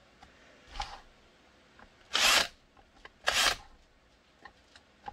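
Cordless drill with a 7/32-inch bit run in short bursts, boring holes through a kydex holster shell for the belt-clip screws: a faint burst about a second in, then two louder ones about a second apart.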